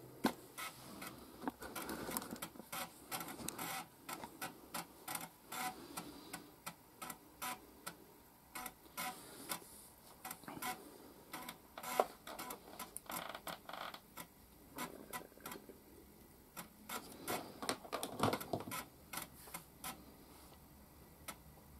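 Amiga A500 floppy drive reading the Workbench boot disk: the head steps and seeks in irregular clicks and short buzzing runs, several a second, while the system loads.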